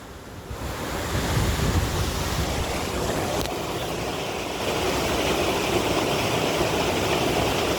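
Steady rush of flowing creek water, with low wind rumble on the microphone during the first couple of seconds.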